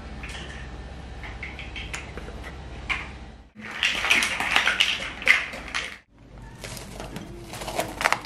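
A toddler's high voice squealing and babbling, with a steady low hum underneath. Partway through it comes up close, with plastic building blocks clattering in the child's hands. Near the end, cling film crinkles as it is peeled back from a glass bowl.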